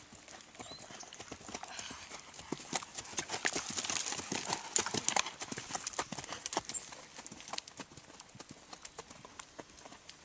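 Horse's hoofbeats at a canter on a dirt arena, rising to their loudest around the middle as the horse passes close, then fading as it moves away.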